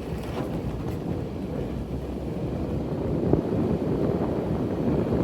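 Steady low rumbling noise, like wind buffeting the microphone, growing a little louder after about three seconds.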